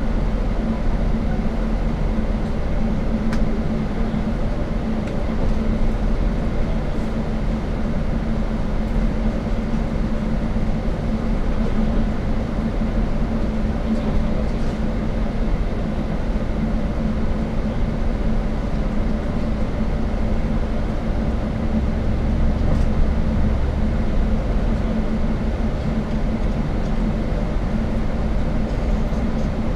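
Steady low drone of a shuttle bus on the move, heard from inside the cabin: engine and road noise with a constant hum, running evenly throughout.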